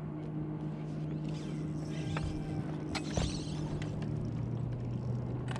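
Steady low hum of a boat motor, with a few sharp clicks and handling noises from a fishing rod and reel about two to three seconds in.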